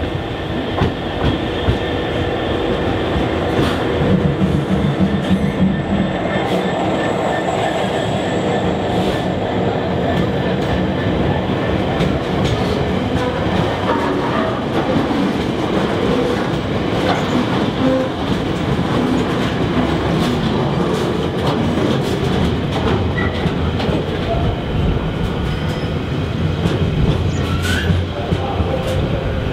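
A GB Railfreight Class 66 diesel locomotive, with its two-stroke V12 engine, passes close, loudest a few seconds in. It is followed by a long rake of loaded container flat wagons rolling by with a steady rumble and rapid clicking of wheels over the rail joints, and a brief wheel squeal near the end.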